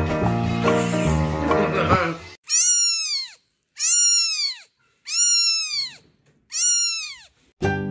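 Background music stops about two seconds in. Then a newborn kitten mews four times, each cry rising and then falling in pitch, with short silent gaps between.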